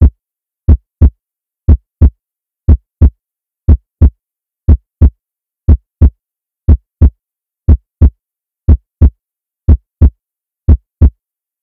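Heartbeat sound effect: pairs of deep thumps, about one pair a second, with silence between them.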